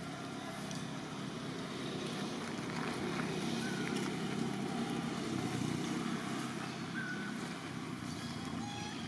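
Low steady rumble that swells a few seconds in and eases off again, with a few short high chirps over it.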